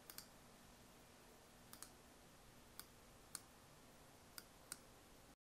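Faint computer mouse clicks: about eight short, sharp clicks, some in quick pairs, spaced unevenly over quiet room hiss, as someone clicks through an online booking form. The sound cuts off suddenly near the end.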